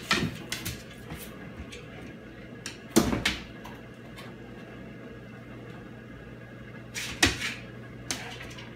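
Cardboard box knocking and scraping as a cat inside it and a dog nosing at it jostle the box and its flaps, in a few separate thumps with the loudest about three seconds in. A steady low hum runs underneath.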